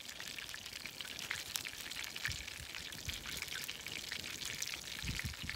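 Wood campfire burning down to coals, crackling and hissing with many small pops, under a pan of oil being heated for deep frying. A few soft low thumps sound under it.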